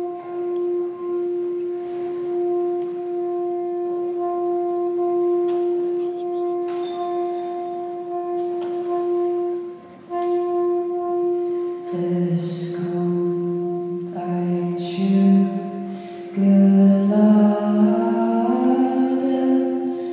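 Soprano saxophone and bass clarinet playing a slow instrumental introduction. One note is held as a steady drone for about ten seconds, breaks off briefly and resumes. From about twelve seconds a low bass line enters and higher notes climb stepwise above it.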